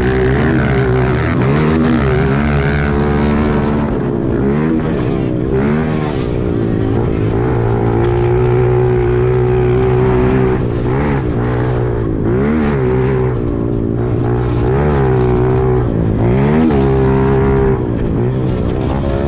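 Pit bike engines being ridden hard, including a Honda CRF125. The revs climb and drop again every second or two with the throttle and gear changes, over a steadier engine note underneath.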